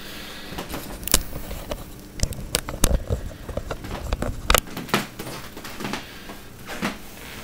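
Camera handling noise as the camera is unclipped from its tripod and carried by hand: irregular clicks and knocks over a low rubbing and rustling, with a few sharper knocks.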